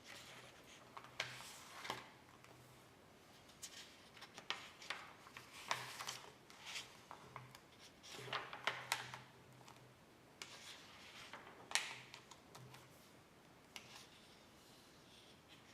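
Faint, irregular clicks and short scrapes of small hard objects being handled, with a low hum that comes and goes.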